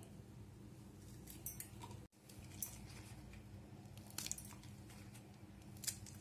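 A few faint short crunches and taps, spaced irregularly: a knife cutting fresh red chillies in half and the pieces dropping into a steel mixer jar, over a steady low hum.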